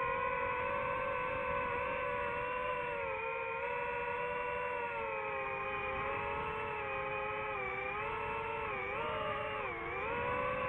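DJI FPV drone's motors and propellers whining steadily in flight, the pitch dipping and recovering twice near the end as the throttle changes.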